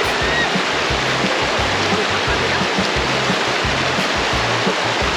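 Mountain stream water rushing steadily over rocks, with a music track's low bass notes repeating underneath.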